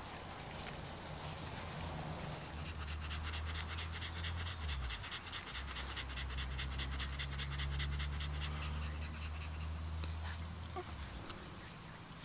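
A solid black German Shepherd panting in quick, even breaths, winded after play. The panting starts a couple of seconds in and fades after about nine seconds, over a low steady rumble.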